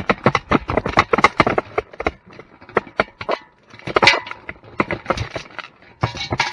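A rapid, irregular clatter of small knocks and clicks from farm animals moving and feeding.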